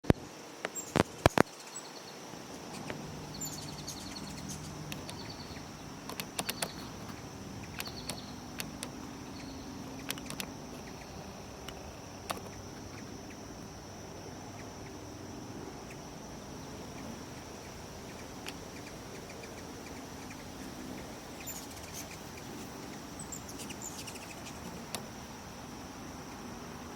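Hummingbirds hovering at a feeder: their wings hum in low bursts that come and go, with short high chirps here and there, over a steady high insect drone. A few sharp clicks in the first second and a half are the loudest sounds.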